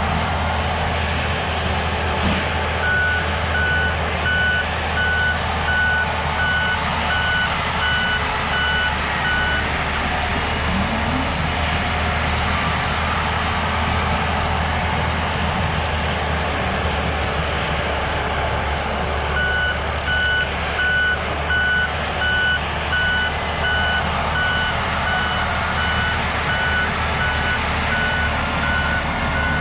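Mini excavator's diesel engine and hydraulics running steadily under load with a brush cutter head. Its travel alarm beeps about twice a second in two long spells, one starting a few seconds in and another from about two-thirds of the way through.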